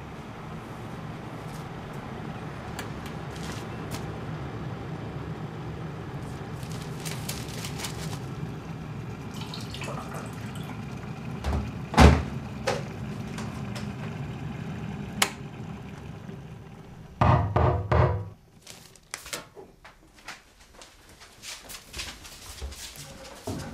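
An electric kettle heating up with a steady rumbling hiss for about twelve seconds, then a sharp thunk and a few clicks. A little later comes a quick run of loud knocks, then footsteps on a wooden floor.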